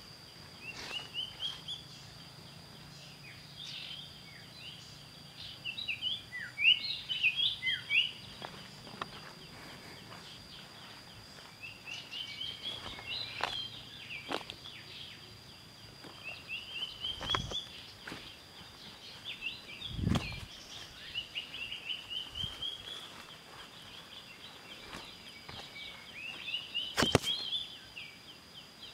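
Birds singing short rising phrases in repeated bouts over a steady high insect drone, with footsteps and knocks through leaf litter and undergrowth, a dull thump about twenty seconds in.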